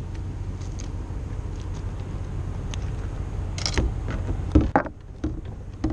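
Sharp clicks and knocks of hands working a hook and tackle, bunched together a little past the middle, over a steady low rumble.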